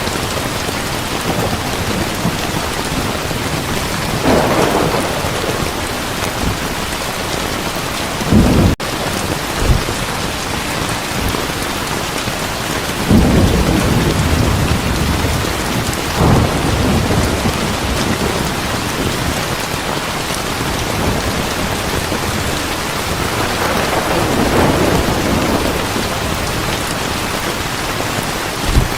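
Heavy rain falling steadily, with several rolls of thunder rumbling through it, the strongest about a third and halfway in. There is a split-second gap in the sound about nine seconds in.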